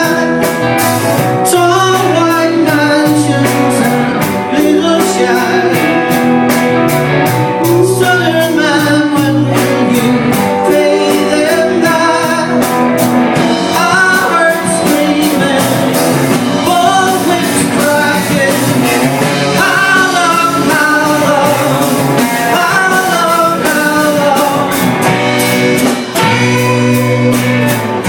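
Live rock band playing: a man singing lead over acoustic and electric guitars and a drum kit.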